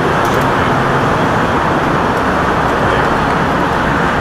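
Steady street traffic noise: a continuous, even rumble and hiss of vehicles running on the road.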